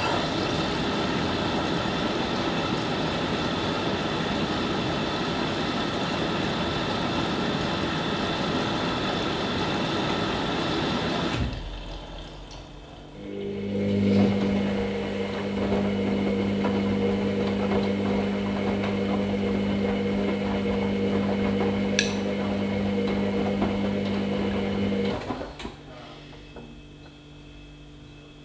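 Hoover Nextra HNL662 washing machine early in its wash programme: water rushing in for about eleven seconds, then, after a brief lull, a steady electric hum from the machine's motor or pump for about twelve seconds that cuts off near the end.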